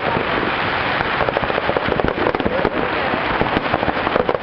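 Fireworks going off in a rapid, continuous barrage of bangs and crackles.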